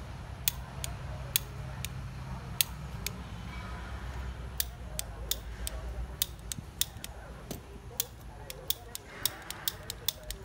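Sharp clicks at irregular intervals, coming more often in the second half: a handheld butane torch's igniter being clicked while lighting charcoal.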